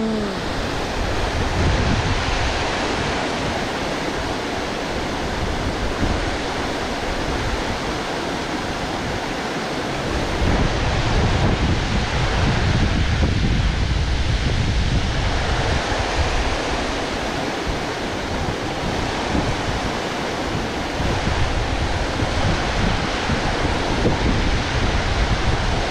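Steady rush of water pouring over a low concrete weir into the pool below, with wind buffeting the microphone as a gusty low rumble that grows stronger about ten seconds in.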